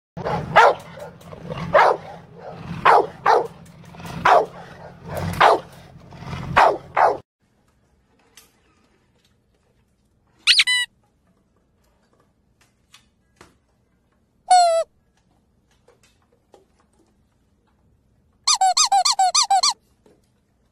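A large dog vocalises loudly in a run of calls about once a second for the first seven seconds. Then a pug puppy gives high-pitched squeaking whimpers: one about halfway through, another a few seconds later, and a quick string of squeaks near the end.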